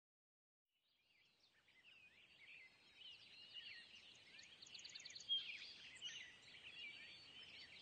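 Faint birdsong: many overlapping short chirps and whistles, starting about a second in.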